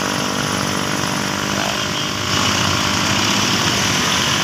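A small motor engine idling steadily, under a rushing noise that swells about halfway through.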